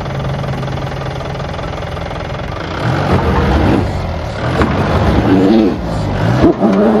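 A 2009 Mahindra Bolero SLX's diesel engine idling steadily, then revved in repeated rising and falling surges from about three seconds in as the vehicle, stuck at the water's edge, is driven and pushed to free it.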